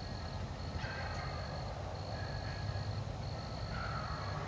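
Insects trilling, one steady high-pitched trill with a few faint shorter calls now and then, over a low background rumble.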